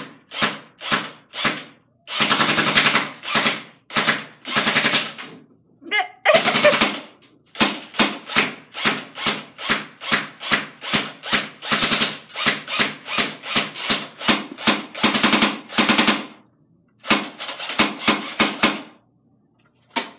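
Electric airsoft AK-47 firing on full auto: short bursts of shots about three a second, broken by several longer strings of rapid shots about a second or more long, with gaps between them.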